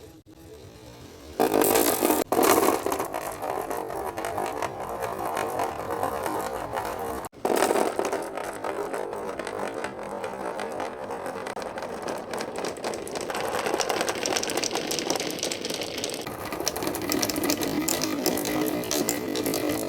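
Marbles rolling and clattering down a wooden HABA marble run: a continuous rolling rumble dotted with many small clicks. It starts suddenly about a second and a half in and cuts out briefly about seven seconds in.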